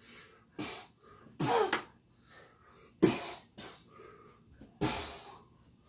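Short grunts, yelps and hard breaths from play-wrestling, about half a dozen separate bursts. The loudest is a sharp cry about three seconds in.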